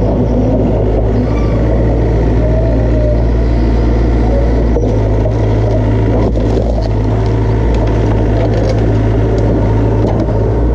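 Diesel engine of a Hitachi EX100-3 excavator running steadily, with a deep even hum, through its newly fitted muffler.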